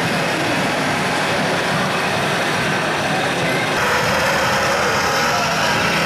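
Radio-controlled model Saurer dump truck running with a steady engine-like drone, over the background chatter of a busy hall.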